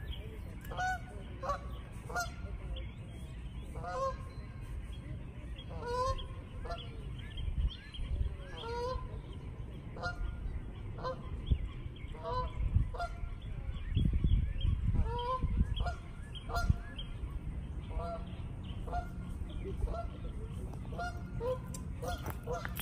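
Geese honking over and over, a short rising call every second or so, the flock going crazy with goslings and a nest nearby.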